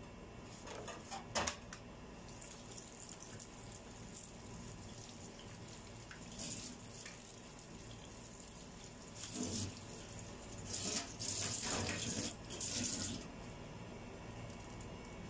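Kitchen tap running into a stainless-steel sink while cut potatoes are rinsed in a plastic basket under the stream. The water sound is steady, with louder splashing now and then, mostly in the second half.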